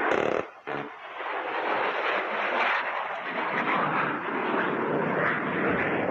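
Loud, steady jet noise from a Panavia Tornado's RB199 turbofan engines as the jet makes a low pass over the range. The sound briefly drops away under a second in, then holds steady.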